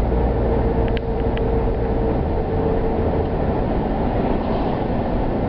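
Steady low rumble of a car's engine and road noise heard from inside the cabin, with a steady hum for the first three seconds and a few faint clicks about a second in.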